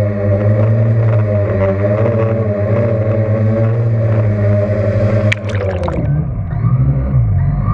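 A multirotor drone's motors and propellers hum steadily at hover, their pitch wavering slightly. About five and a half seconds in there is a splash as the drone dips into the water, and the hum turns muffled and low, heard from underwater.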